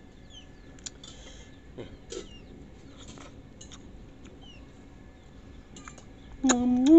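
Faint, short falling bird chirps over a quiet background, with a few small clicks. Near the end comes a loud, drawn-out humming 'mmm' from a man, rising slightly in pitch, as he tastes sour langsat fruit.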